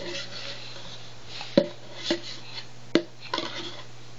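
Hollow plastic clacks from a ring-stacking toy as rings knock against its post and base: a few sharp knocks at irregular intervals, the loudest about a second and a half in and about three seconds in.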